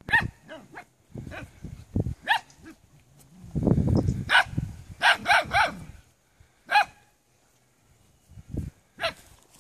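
Maremma sheepdog puppies barking: short, high-pitched yapping barks, about ten of them, some in quick runs of two or three. Deep rumbling and rustling close to the microphone comes between the barks, loudest just before the middle.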